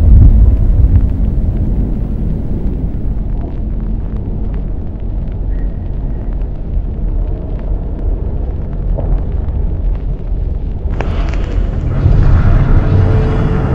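A deep, continuous rumble, heavy in the low end, with faint crackles through it. About eleven seconds in it suddenly turns louder and brighter.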